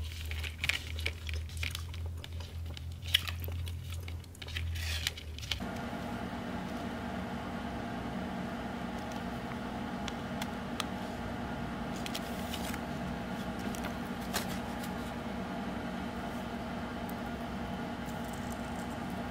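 Small clicks and crinkles of hands handling a wire umbrella fishing rig, then a plastic package of wire shafts and a bundle of thin wires. A steady hum comes in about five and a half seconds in and runs under the handling.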